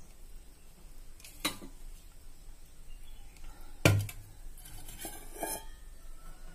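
Stainless steel bowl and vessels knocking together as they are handled: a light clink, a loud clank about four seconds in, then a short run of clinks.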